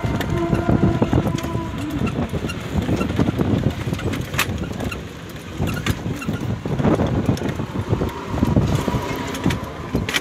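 A motor vehicle running along a road, with scattered knocks.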